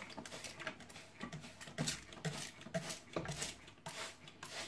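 Hand trigger spray bottle misting water onto moss and bark chips, squeezed over and over in quick short spritzes, about three a second.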